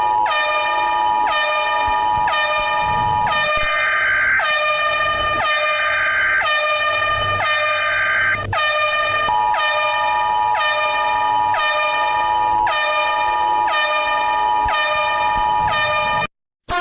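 Electronic emergency alert alarm: a horn-like blaring tone pulsing about every 0.6 s over the steady two-tone EAS attention signal, which drops out for a few seconds in the middle. It cuts off abruptly near the end.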